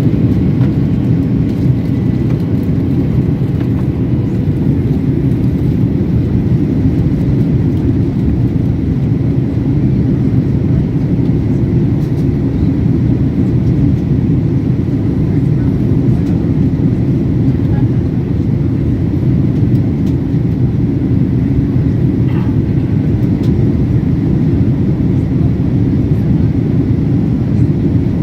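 Boeing 767 in flight, heard from inside the cabin as a steady low rumble of engine and airflow noise that holds at one level.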